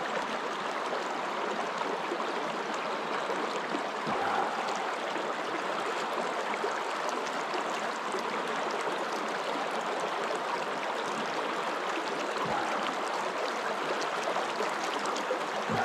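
Shallow, rocky stream running steadily over stones.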